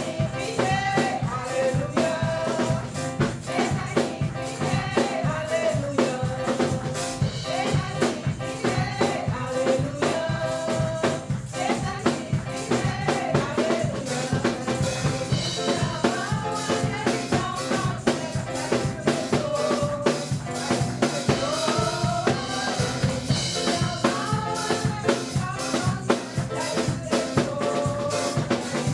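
Worship music with a steady beat on drum kit and percussion, and a sung melody line over it.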